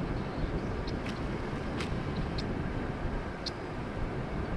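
Wind rumbling and buffeting against the microphone, a steady low noise, with a few brief faint high chirps.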